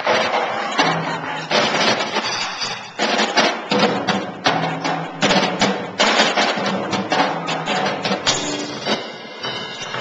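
Live band playing, with a drum kit's repeated loud drum and cymbal hits over steady low notes.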